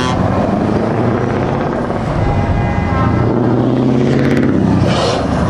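Heavy Scania trucks driving past one after another, their diesel engines running loudly with a low, steady drone that shifts in pitch midway. A brief hiss sounds near the end.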